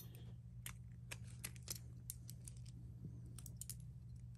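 Faint, scattered small clicks of Metal Fight Beyblade parts being handled and twisted apart by hand, plastic and metal pieces clicking against each other. A steady low hum runs underneath.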